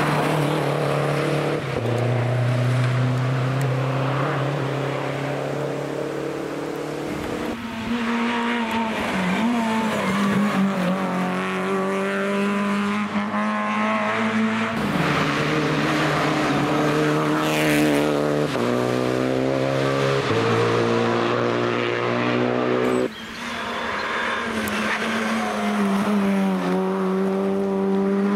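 Rally car engines driven hard on a special stage, revving high with the pitch stepping and gliding through repeated gear changes and lifts off the throttle.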